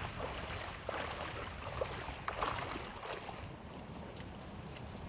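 Wind buffeting the microphone over the wash of the sea along a shore, with a few faint clicks and knocks about a second in and again around two seconds.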